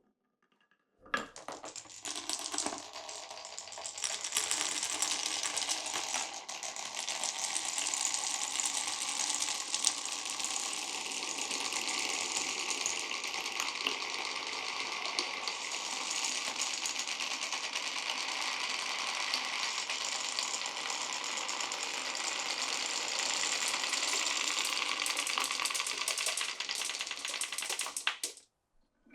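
Many glass marbles rolling and clattering through a wooden marble run: a dense, continuous rattle of small clicks that starts about a second in and cuts off suddenly near the end.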